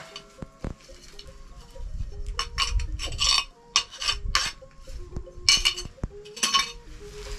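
Flat shards scraping and scooping dirt and chicken droppings off a packed-earth floor, in short rough strokes that bunch together around the middle and again near the end.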